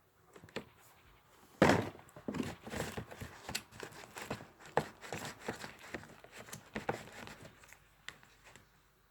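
Slime ingredients being handled as activator is added and mixed in a bowl: a loud knock about a second and a half in, then irregular clicks and knocks.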